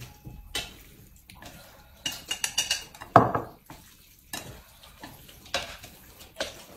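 Chopsticks tapping and scraping on ceramic bowls and plates as noodles are mixed and eaten, in irregular clicks with a louder scrape about three seconds in.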